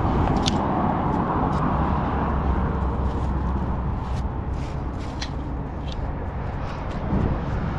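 Road traffic passing: a rushing noise with a low rumble that swells over the first couple of seconds and then eases. A few soft ticks and rustles of rope being knotted against the trailer rail.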